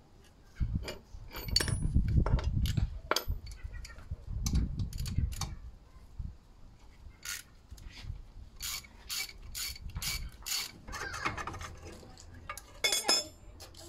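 Hand tools working on a Mini Cooper's front suspension behind the hub. There is metallic clattering and knocking at first, then a run of even ratchet-wrench clicks, about three a second, as a bolt is turned.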